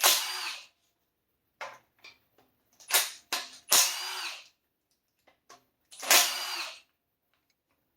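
Cordless power driver spinning in three short bursts, whirring briefly each time as it backs out the 10 mm bolts holding the K24A2 timing chain guide. Light metallic clicks of the socket and bolts come in between the bursts.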